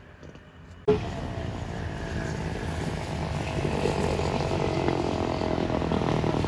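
Carbureted Honda Beat scooter engine, bored out to 130 cc, running through a home-built road-race exhaust. The engine note jumps in suddenly about a second in and then grows steadily louder.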